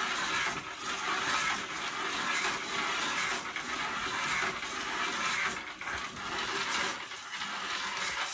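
Wind-up clown toy's clockwork spring motor running, a steady whirring rattle as it spins its ball and moves about.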